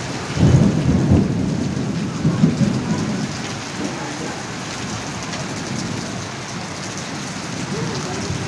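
Heavy rain pouring down in a storm, a dense steady hiss. For the first few seconds, loud low rumbling lies under it.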